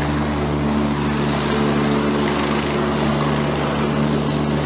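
Eurocopter EC145 rescue helicopter hovering, its rotors and turbines running with a steady hum.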